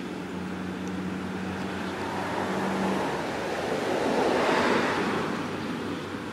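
Outdoor street noise: a steady low hum, then a passing vehicle that swells and fades about four to five seconds in.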